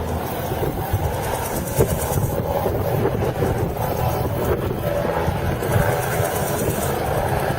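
Helicopter rotor and engine noise, steady and loud.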